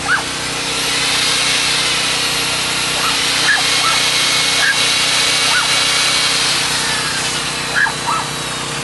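Corded electric drill running steadily, driving a self-tapping screw into a steel greenhouse tube, for about seven seconds before easing off near the end.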